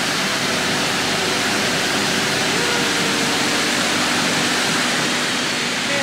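Waterfall pouring into its plunge pool close by: a loud, steady rush of water with no letup.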